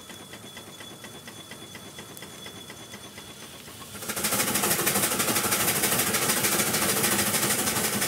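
Reeves 13 HP steam traction engine running with a light, quick, regular beat. About four seconds in, a loud, steady rush of hissing steam starts and carries on.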